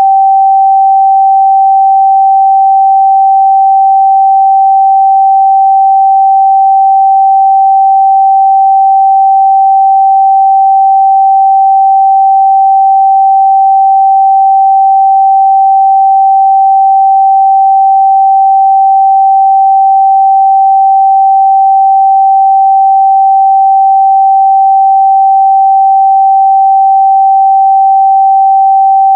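A continuous 777 Hz sine-wave test tone, a single pure pitch held steady and loud without any change.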